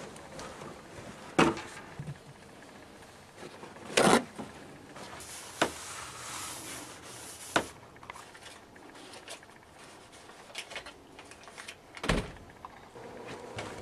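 A few sharp knocks and bumps of a door and objects being handled, the loudest about four seconds in, with a stretch of rustling from about five to eight seconds in.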